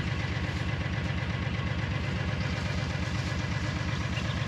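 Diesel tractor engine running steadily at idle, with an even, fast low throb.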